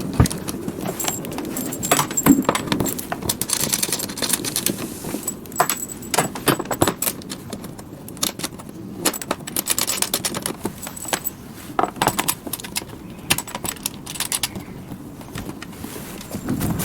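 Laser-pad connector plugs and their cables being handled and plugged into the cavitation machine's sockets: irregular clicks and clatter of hard plastic throughout.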